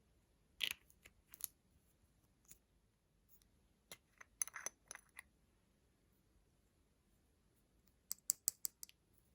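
Sharp clicks and taps of small plastic makeup containers and caps being handled: a few scattered clicks, then a quick run of about six clicks near the end.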